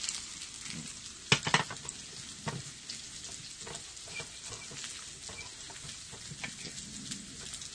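Chopped green onion sizzling in hot chili oil in a frying pan as it is stir-fried, with a spatula scraping and knocking against the pan; the sharpest knocks fall about one and a half and two and a half seconds in.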